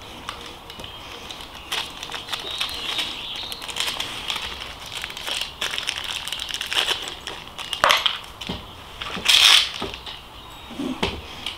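Hands working on an e-bike's disc brake caliper and pads: a string of small metal clicks, scrapes and rustling, with two louder clattering scrapes about eight and nine and a half seconds in.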